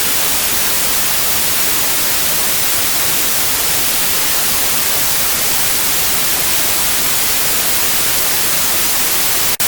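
Loud, steady static hiss like an untuned TV, cut in abruptly and unchanging, with a split-second break near the end.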